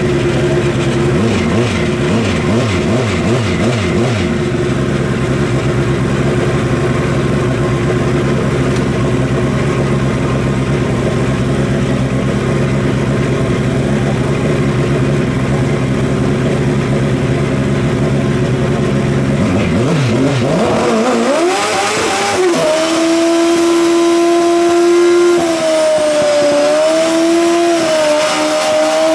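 Drag-racing motorcycle engine running at a steady idle, then about 20 seconds in revving up and held at high revs for a burnout, its rear tyre spinning on the track. The revs waver up and down during the burnout and drop near the end.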